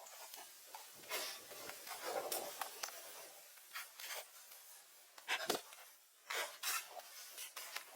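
Irregular scraping and rubbing strokes with several short, sharp knocks, the loudest knock about five and a half seconds in.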